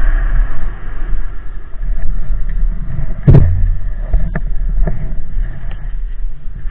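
Two-stroke Arctic Cat Sno Pro 440 snowmobile running, its engine note dropping away at the start under a heavy low rumble. There is a loud thump a little over three seconds in, followed by a couple of lighter knocks.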